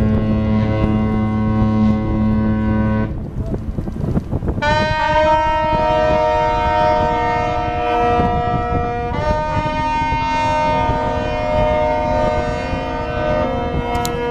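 Ship horns sounding long blasts. A deep horn ends about three seconds in. After a short break, higher horns sound together as a held chord whose notes shift about halfway through.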